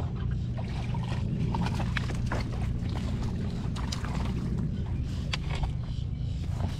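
Steady wind rumble on the microphone, with scattered small clicks and rustles as a freshly caught redear sunfish (shellcracker) is swung in on a cane-pole line and handled.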